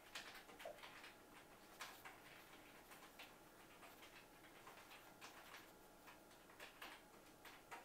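Near silence: faint room tone with a few scattered soft ticks.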